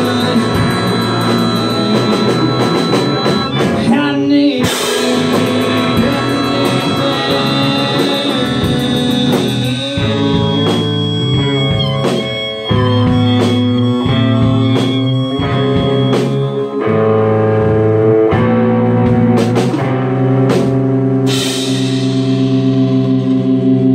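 Small rock band playing live: electric guitars and a drum kit, with singing. A loud cymbal wash comes near the end.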